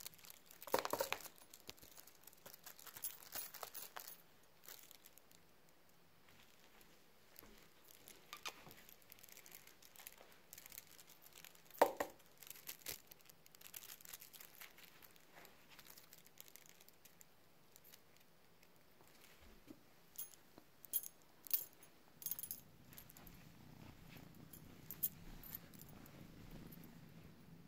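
Scattered light clicks, scrapes and rustles of a young cat playing with a feather toy on a carpeted cat tree, with a few sharper knocks, the loudest about a second in and about halfway through.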